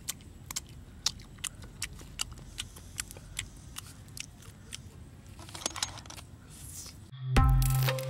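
Close-up eating sounds of a person chewing and biting roasted fish off the bone: sharp clicks and crunches, two or three a second. About seven seconds in, loud intro music with a heavy bass note starts.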